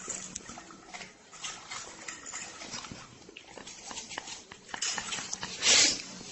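A dog chewing and smacking as food is pushed into its mouth, with a fork clicking against a plate. A louder breathy burst comes near the end.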